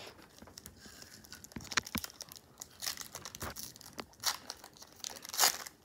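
Crinkling and rustling of a foil Pokémon booster pack wrapper and trading cards being handled on a table, in short scattered crackles and clicks.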